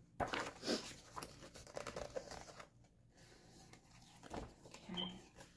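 Paper rustling as the pages of a craft book are turned over by hand, in a few short bursts, busiest in the first second or so.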